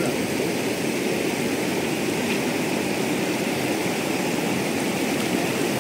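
Steady rushing of a shallow river running over stones, an even hiss with no breaks.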